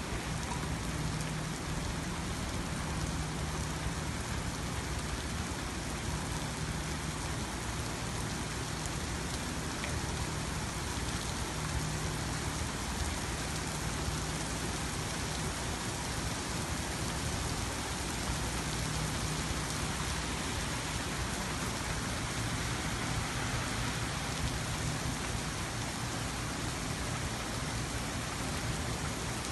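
Steady rain falling on pavement and parked cars: an even, unbroken hiss with a faint low hum underneath.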